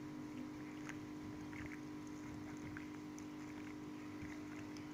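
Hands squishing raw chicken pieces in a wet spice-and-yogurt marinade in a glass bowl, a few faint squelches, over a steady low hum.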